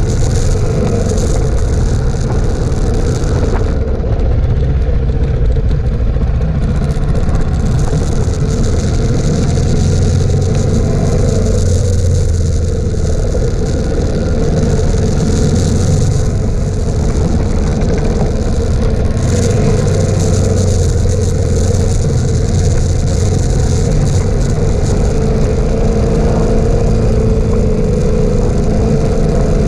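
Suzuki DR650's single-cylinder four-stroke engine running steadily while riding a dirt track, heard close up from the bike, with a steady hiss of wind over it.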